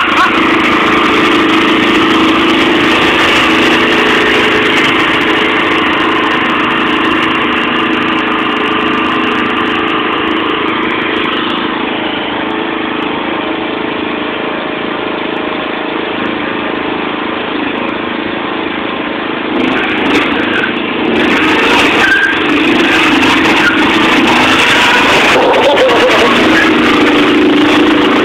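Riding lawn mower's engine running steadily and loudly throughout, a little quieter through the middle and louder again for the last third.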